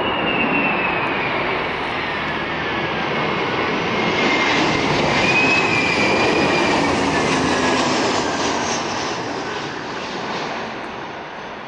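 Airbus A321 jet engines passing close on final approach and flare: steady jet noise with a high fan whine that bends in pitch as the plane goes by. It is loudest about five to seven seconds in, then fades as the airliner moves away down the runway.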